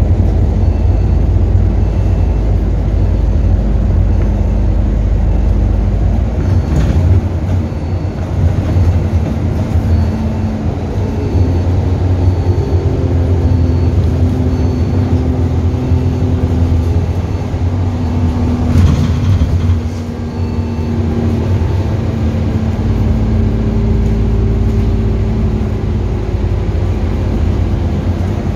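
A bus driving, heard from inside the cabin: a steady low rumble of engine and road noise, with the engine note rising and changing as the bus alters speed. There are two faint knocks, about seven and nineteen seconds in.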